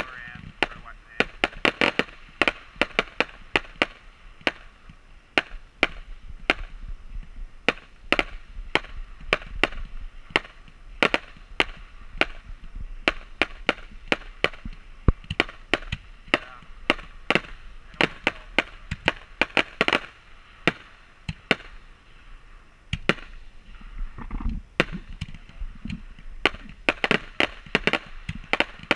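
Fireworks display: an uneven string of sharp bangs from aerial shells, several a second, each with a short echo. The bangs thin out briefly about three quarters of the way through, then come faster near the end.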